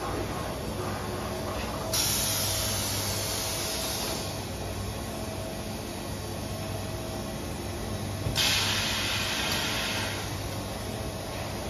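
PUR glue rolling line machinery running with a steady hum. Two loud hisses cut in suddenly, about two seconds in and again about eight seconds in, each lasting a second or two and fading.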